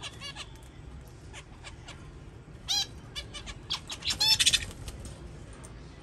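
Young budgerigars chirping: scattered short chirps, one louder call near the middle, and a quick burst of loud chirps about four seconds in.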